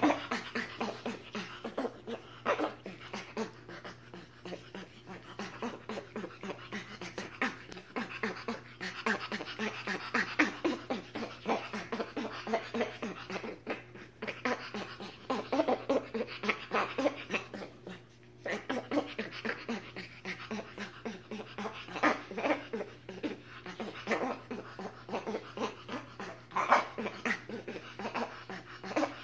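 A capuchin and a spider monkey play-wrestling, making quick breathy panting huffs in runs of several a second, with brief pauses between runs.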